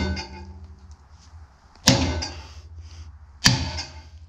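Heavy hammer blows on a muck grab's steel tine shafts to knock the old tines out: two ringing metal strikes about a second and a half apart, with the ring of a blow just before still dying away at the start.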